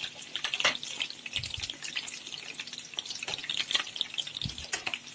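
Egg-and-milk-soaked bread slices frying in shallow hot oil in a pan: the oil sizzles and crackles with many small irregular pops.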